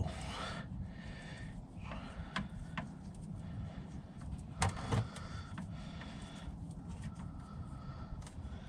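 A few light clicks and knocks from hands and tools working under the car, over a low steady hum, with the two loudest knocks about halfway through.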